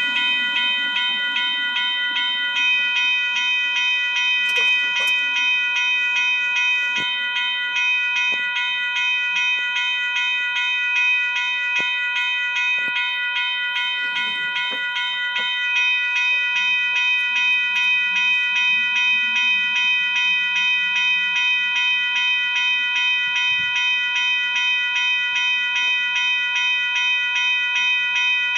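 Railroad level-crossing warning bell ringing in rapid, even strikes that do not let up, sounded because a train is approaching the crossing.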